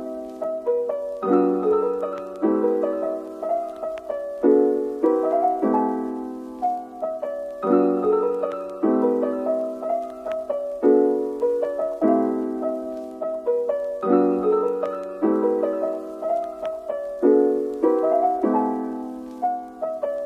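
Background piano music: a gentle tune of struck notes that fade, a new note or chord about every second.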